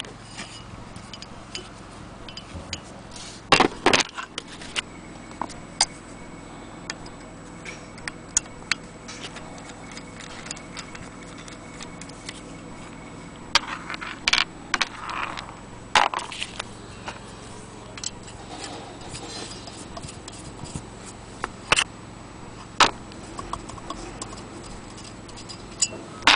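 Cast-iron hand-crank wheel of a Willcox & Gibbs sewing machine being handled and turned by hand: irregular metallic clicks, knocks and light scrapes, with a few louder knocks scattered through.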